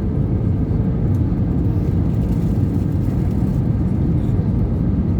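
Steady low rumble of an Airbus A320's engines and rushing air, heard from inside the cabin on approach, with a faint steady hum above it.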